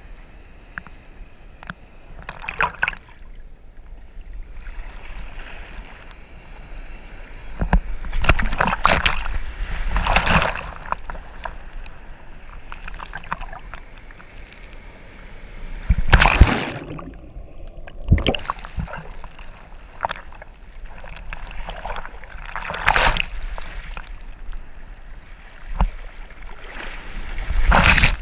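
Ocean surf sloshing and splashing around a camera at water level, with several louder surges as waves wash against and over it. A wave breaks over the lens near the end.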